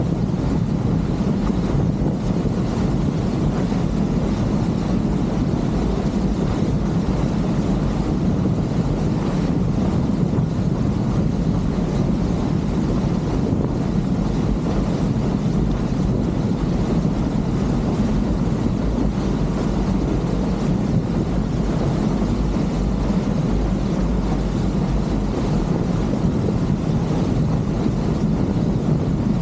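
Motorboat running steadily under way: an even engine and hull drone with wind buffeting the microphone.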